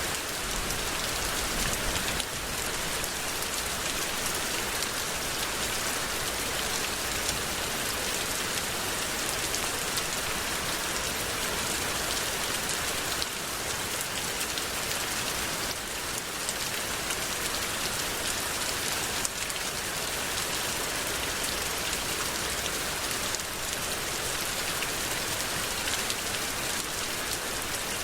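Heavy rain falling steadily, a dense even hiss with the patter of drops hitting a surface.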